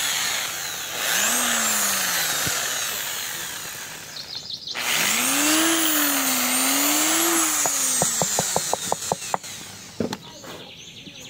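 Electric drill boring a hole in wood, its motor pitch sagging and rising under load. It stops briefly about four and a half seconds in and starts again, and a quick run of clicks comes near the end as it dies away.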